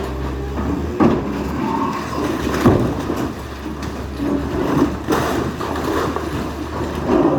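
Demolition work: a heavy machine's engine runs steadily under irregular clanks and scrapes of metal and rubble, with sharper knocks about a second in, near the middle and near the end.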